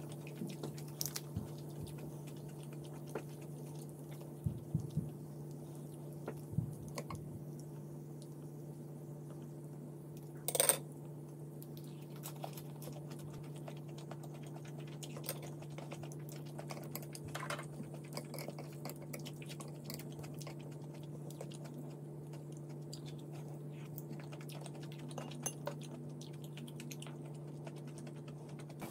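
Close-up eating sounds: chewing, with chopsticks and a spoon clicking now and then against dishes. One louder clink about ten seconds in. A steady low hum runs underneath.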